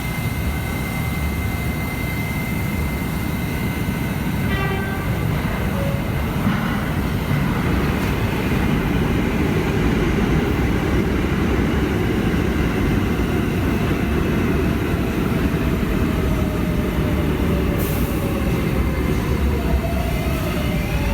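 Kawasaki R188 subway train running: a steady loud rumble with a high whine, and a tone sliding slowly down in pitch over the last few seconds.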